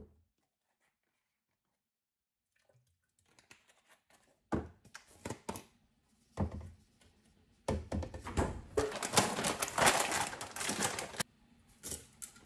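Ingredient containers handled on a kitchen counter: a few knocks and lid clicks, then about three and a half seconds of dense clattering as shake ingredients are tipped into a plastic blender jar.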